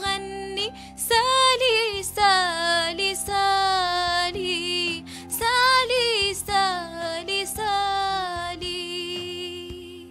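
A woman singing long held, wavering notes into a microphone over an instrumental backing track, which fades out near the end.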